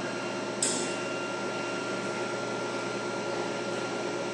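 Soft-serve ice cream vending machine running as it dispenses ice cream into a cup: a steady mechanical hum with a thin high whine, and one brief sharp noise just over half a second in.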